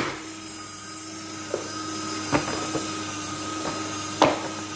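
Electric paper shredder motor humming steadily while it cuts through card and cardboard, with a few sharp cracks, the loudest about four seconds in.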